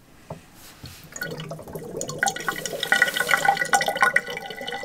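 A bathroom faucet handle turned with a click, then about a second in a thin stream of water starts running from the spout into a stainless steel sink, splashing unevenly. This is the last water draining out of an RV's plumbing as the faucets are opened for winterizing.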